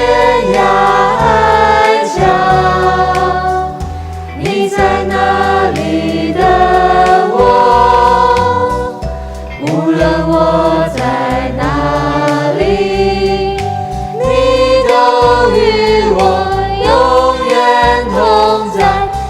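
Christian worship song: voices singing together over instrumental backing with steady low bass notes.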